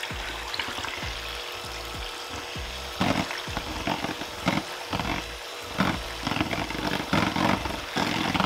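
Electric hand mixer running steadily, its twin beaters whisking a thin milk-and-coffee mixture in a plastic bowl. From about three seconds in, the liquid splashes and clatters louder and irregularly under the beaters.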